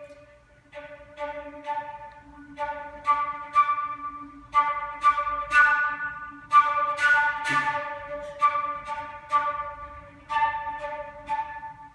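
Solo flute playing a string of short, sharply attacked notes in a steady rhythm, growing louder toward the middle and easing off near the end.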